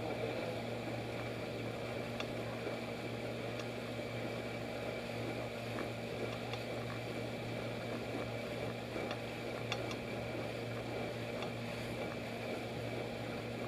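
1971 Evinrude 6 HP two-stroke outboard motor running steadily at cruising speed, pushing a jon boat along, with the hiss of water and wake around the hull.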